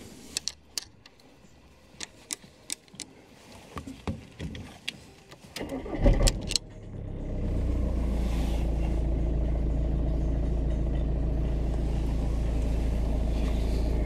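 A series of light clicks, then a VW Golf Mk5's starter cranks briefly and the engine catches about six seconds in, settling into a steady idle.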